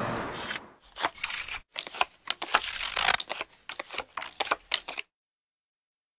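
A run of short, sharp clicks and taps, irregular at about three to four a second, that stops abruptly about five seconds in.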